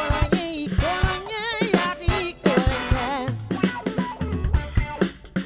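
A live band playing: a drum kit beat with brass and saxophone, a wavering melodic line over it and a bass guitar coming in low partway through.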